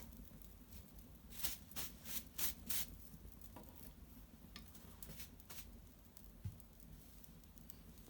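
Small fire of dried maple twigs crackling: a quick run of sharp pops and snaps about a second and a half in, then a few scattered single ticks.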